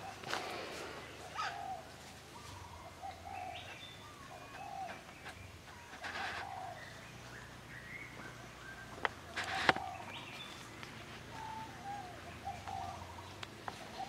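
Animal calls: short low coos repeated every second or so, with fainter higher chirps over them. Two sharp snaps come a little past halfway, the second louder.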